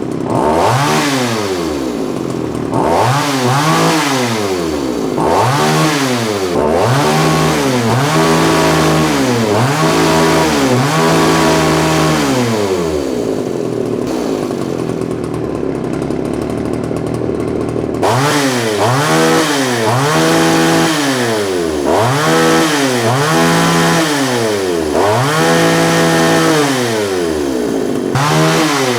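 Poulan 3400 Countervibe two-stroke chainsaw running, its throttle blipped so the engine revs up and falls back about once a second. For several seconds in the middle it runs at a steady, slightly quieter idle before the revving starts again. The saw has just been revived with new fuel line and a thorough cleaning after sitting unstarted for years.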